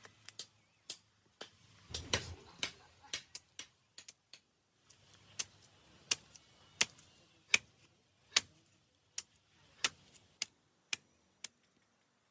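A series of sharp, irregular taps, about one or two a second, typical of hand-tool strikes on a workpiece.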